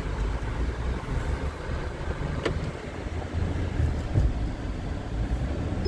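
Low, steady road and engine rumble inside the cabin of a moving Mahindra Scorpio-N SUV. A single short click sounds about two and a half seconds in.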